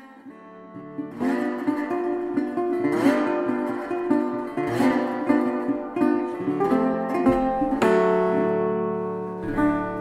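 Background music: an acoustic guitar strumming chords, a new chord about every two seconds.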